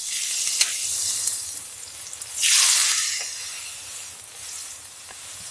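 Fatty meat frying with a steady sizzle. The sizzle swells louder for about half a second, two and a half seconds in.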